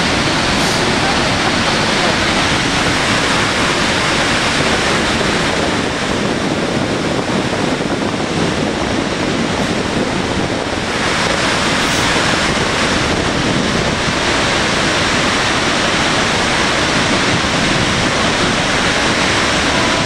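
A large waterfall pouring over a cliff, heard from close by at its brink: a loud, steady rush of falling water.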